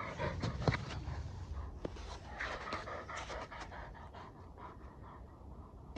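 Pit bull panting rapidly, out of breath after pulling a skier, getting fainter toward the end.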